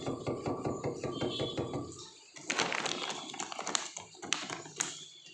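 A few sharp metallic clinks and knocks, spread over the second half, from the steel dog-food bowl being handled.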